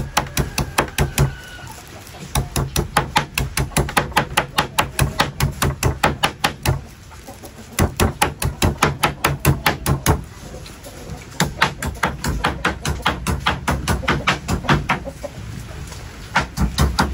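Rapid, even chopping with a knife or cleaver on a cutting board, about five strokes a second, in runs of a few seconds broken by short pauses: food being minced.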